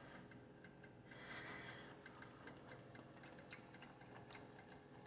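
Near silence: room tone with a few faint, light clicks.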